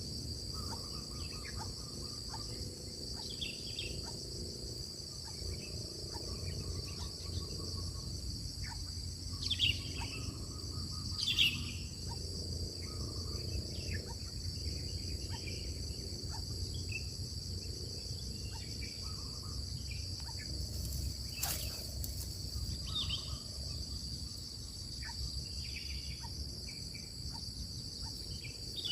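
A steady, high-pitched insect trill runs throughout, with short bird chirps scattered through it and a low rumble underneath.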